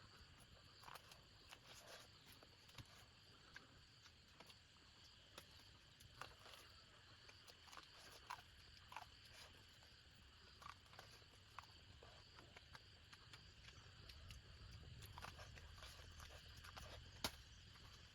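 Near silence: faint outdoor ambience with scattered soft clicks and taps.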